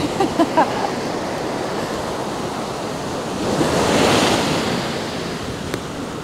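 Ocean surf breaking and washing up a sandy beach, swelling louder about four seconds in as a wave breaks.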